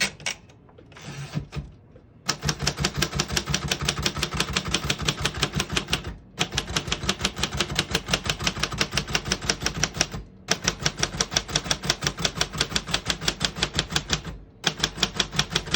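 1967 Royal Aristocrat portable manual typewriter typing out the alphabet: a few clicks, then a fast, even run of type bars striking the platen at about six or seven keystrokes a second, in three stretches with brief pauses. A margin bell rings right at the end.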